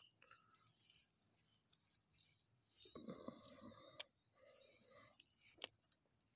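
Near silence with the faint, steady high-pitched drone of insects chirring, a few faint clicks and a soft murmur in the middle.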